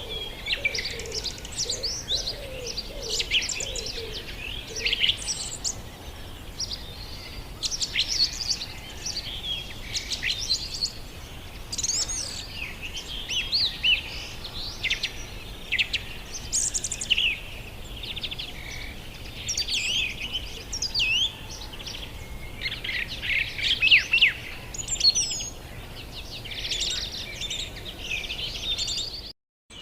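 Small pet parrots, cockatiels and conures, chirping and whistling rapidly, several calls overlapping in quick, high trills. A few lower warbling notes sound in the first few seconds.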